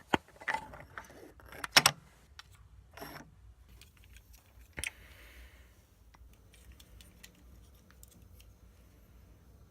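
A few sharp clicks and a brief clatter in the first two seconds, one more click about five seconds in, then faint scattered ticks.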